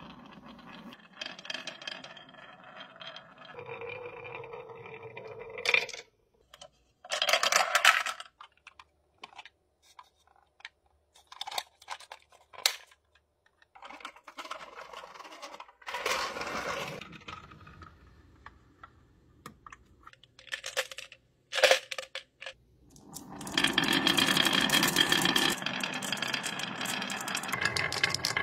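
Marbles rolling and clacking down a wavy wooden HABA slope track, knocking against the wood and each other in short separate runs with brief silences between. Near the end many marbles roll down together in a long, dense rattle.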